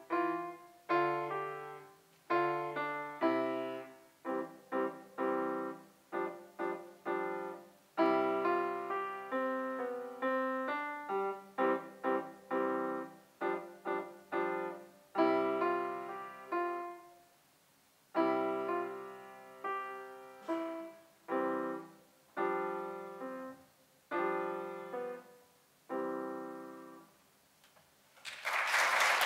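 Grand piano played solo in short phrases of separate notes and chords, with brief pauses between phrases; the last chord dies away and applause breaks out just before the end.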